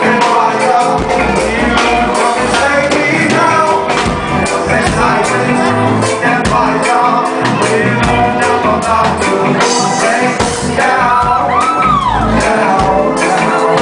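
Live band playing loud amplified music, with singing.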